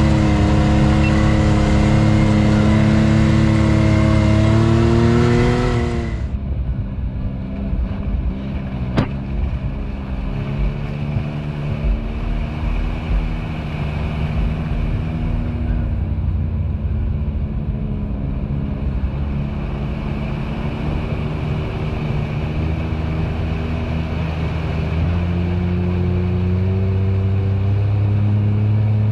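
A vehicle engine running at steady revs under way, its pitch rising briefly about five seconds in. About six seconds in the sound abruptly turns duller as the higher sounds drop out, with a single sharp knock a few seconds later. The engine runs on steadily and picks up revs again near the end.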